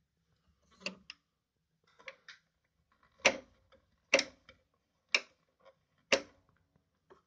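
Stitch-selector dial on a Pfaff 294 sewing machine turned by hand, clicking from one setting to the next: a few light clicks, then four sharper single clicks about a second apart.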